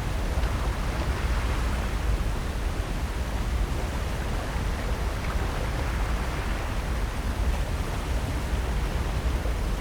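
Steady, unbroken wash of ocean surf along the shore, with a low rumble underneath.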